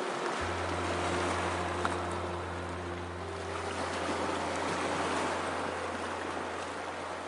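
Ocean surf washing in a continuous rush that swells and eases. A low steady hum enters about half a second in, with faint held tones above it.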